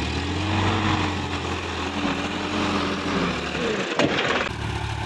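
Sonalika DI-50 RX tractor's diesel engine running as the tractor moves, its pitch rising and falling. About four seconds in there is a sharp click, and after it the engine runs steadily close by.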